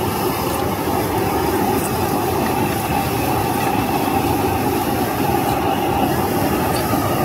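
Steady, loud rushing noise of a high-pressure gas wok burner on a stir-fry stall, running without a break.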